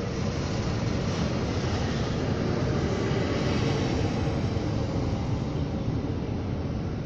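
Steady rumble and wheel noise of trains passing close by: a freight train of tank wagons rolling past, joined by a double-deck regional electric train running by on the nearer track. The noise swells slightly around the middle.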